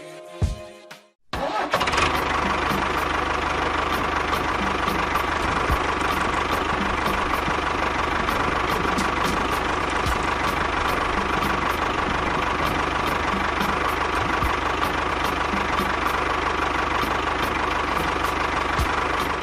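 Small motor starting up about a second in and then running steadily, with a constant hum and regular light ticks.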